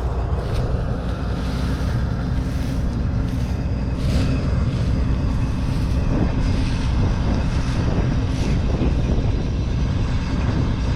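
Combine harvester's engine running steadily nearby, a low, even drone.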